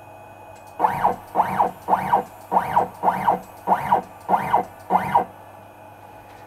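Stepper motors of a DIY CNC machine's lead-screw axis jogging the spindle in eight short moves, about one every 0.6 seconds. Each move is a brief whine that rises and then falls in pitch as the motor speeds up and slows down.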